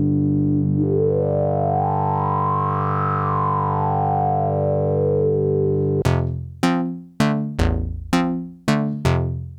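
Arturia MiniFreak synthesizer holding a sustained low note while a resonant filter sweeps slowly up and back down. About six seconds in, it switches to a pattern of short plucked notes, roughly two a second, each dying away quickly.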